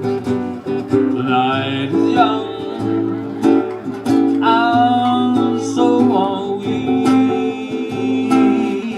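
Hawaiian band music with strummed acoustic guitars under a lead melody that slides up into its notes. The lead wavers in pitch near the end.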